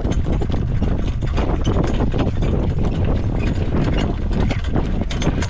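Horse's hooves clip-clopping in a quick, irregular patter over a steady low rumble.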